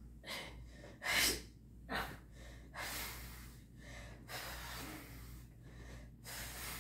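A woman breathing hard from exertion during crunches: a sharp gasp about a second in, then a run of long, noisy breaths out.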